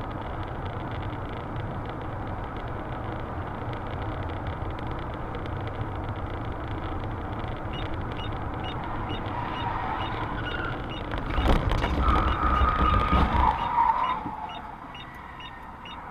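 Steady road and engine noise inside a moving car on a highway, picked up by a dashcam. About eight seconds in, a light regular ticking starts at a little under two a second. Later a louder passage of a couple of seconds carries a held tone, and then the noise falls away.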